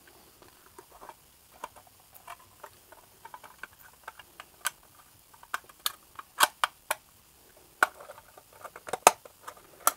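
Light plastic clicks and taps from an HO scale plastic boxcar body being handled and pushed down onto its floor and underframe. They come a few at a time, sparse and faint at first and more frequent and sharper from about halfway through.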